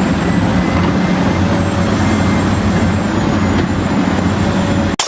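Heavy vehicle's diesel engine running steadily and loudly, then cutting off abruptly near the end.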